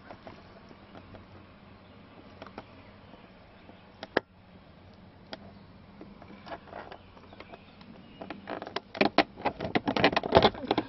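Plastic dashboard trim and the instrument cluster of a 1999 Land Cruiser clicking and knocking as it is tugged by hand, still stuck in the dash. There is a single sharp click about four seconds in, then a dense run of clicks and knocks from about eight and a half seconds in.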